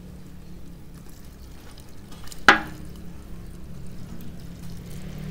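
Paint thinner pouring from a large metal can into a plastic measuring jug, over a steady low hum. A single sharp knock about halfway through is the loudest sound.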